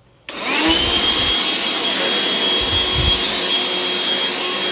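Black+Decker cordless handheld vacuum switching on a moment in, its motor spinning up to a steady high whine over a rush of air as it sucks up stray cat litter. A couple of low bumps come from the vacuum being handled.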